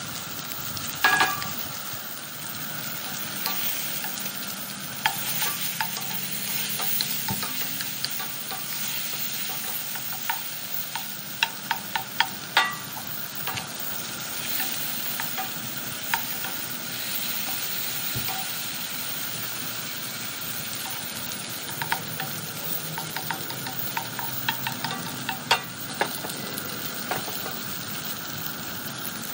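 Mushrooms and a whole trout frying in a cast iron skillet with a steady sizzle, while a wooden spoon stirs and scrapes through them, knocking against the pan in clusters of sharp clicks.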